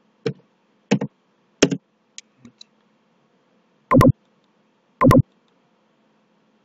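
Computer keyboard keystrokes and mouse-button clicks: a few single clicks in the first two and a half seconds, then two louder double clicks, press and release, about a second apart.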